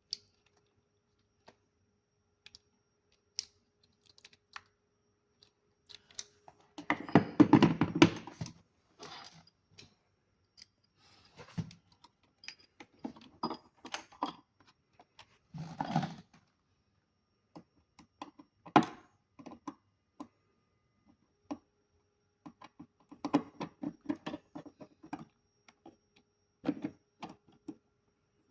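Irregular small clicks, taps and clattering of a small object being handled, opened and closed during a battery replacement, with a louder spell of handling about seven seconds in.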